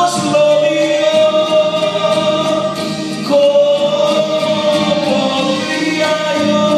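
A man singing a gospel-style Christian song into a microphone over accompaniment music, holding two long notes, the second starting about three seconds in.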